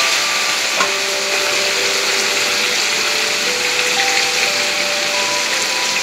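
Fish pieces deep-frying in hot oil in a metal wok, a steady sizzle and bubbling. Soft background music with held notes plays underneath.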